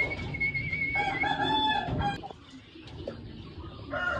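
Rooster crowing once about a second in, a call of about a second with several pitched layers, after a high wavering tone at the start.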